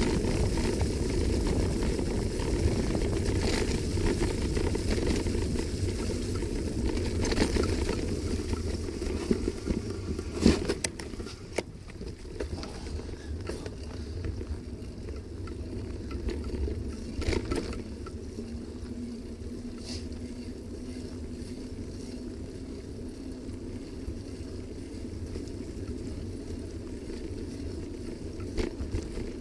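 Ride noise from a bicycle-mounted camera: steady wind rumble on the microphone and tyre noise on a wet path strewn with fallen leaves, with a few sharp knocks from bumps. The rumble drops about a third of the way through as the bike slows.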